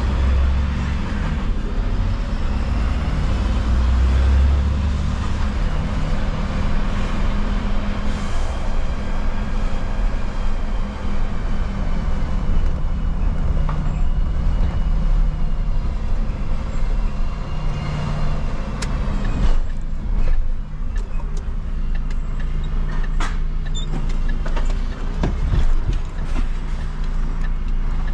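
Refuse collection truck's engine running steadily, with sharp clicks and knocks in the last third.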